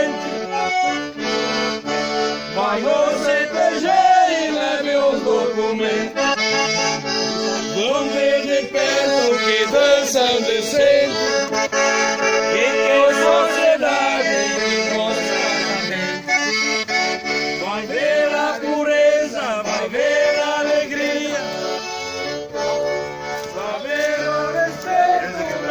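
Piano accordion playing a folk tune with steady melody and chords.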